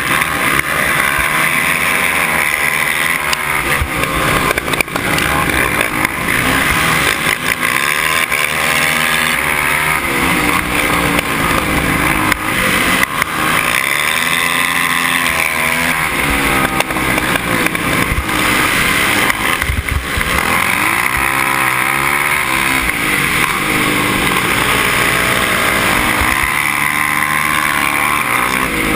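Racing quad (ATV) engines at full race speed. The nearest engine rises and falls in pitch several times as it accelerates and backs off around the oval, with other quads' engines running close by.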